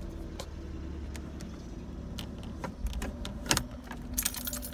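Inside a 1989 Oldsmobile Cutlass Ciera wagon on the move: a steady low engine and road rumble, with the ignition keys jingling and clicking against the steering column now and then.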